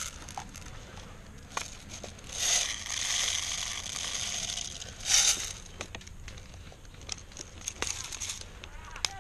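Leaves and twigs rustling and crackling as a person moves through dense bushes, with a longer stretch of louder rustling in the middle and scattered small snaps.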